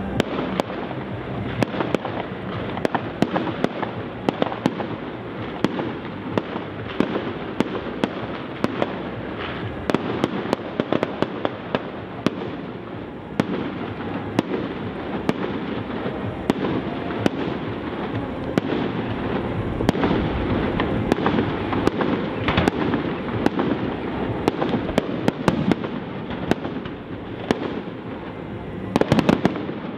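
Fireworks display: frequent sharp bangs of bursting shells over a continuous noise, with a quick run of bangs near the end.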